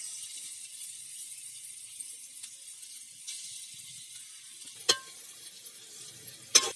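Hot oil sizzling steadily as balls of sweet wheat-flour bonda batter deep-fry in an aluminium kadai. Two sharp metallic clinks, about five seconds in and near the end, a perforated ladle knocking against the pan.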